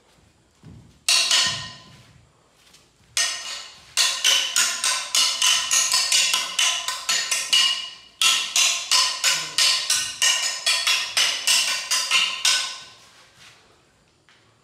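Metal weapons clashing in Kalaripayattu sparring: sharp ringing strikes, two single ones and then two long fast runs of about three to four a second that die away near the end.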